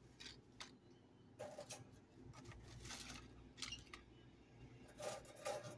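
Faint, scattered rustles and light taps of potato chips being arranged by hand on a plate; a few short touches, the last a little before the end.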